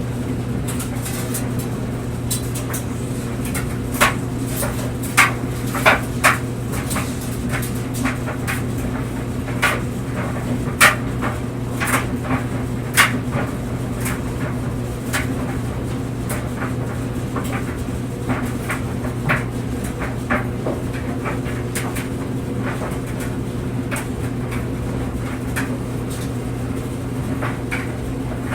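Clothes dryer running with clothes tumbling: a steady low hum with irregular light knocks and clicks as the load drops against the drum. The knocks come thickest in the first half and thin out later.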